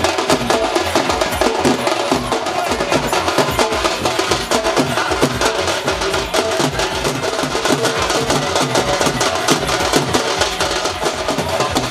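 Street drum band of dhols playing a loud, rapid dance rhythm, with sharp clattering strokes over the deeper drum beats.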